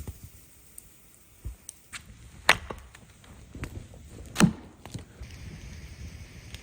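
Two sharp knocks about two seconds apart, the second the loudest, with a few lighter clicks and taps between them.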